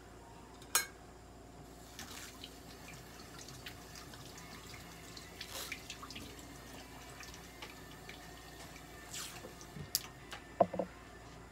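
Quiet handling sounds while medical tape is wrapped around a cat's foreleg: faint scattered clicks and crinkles, with a brief pitched squeak near the end.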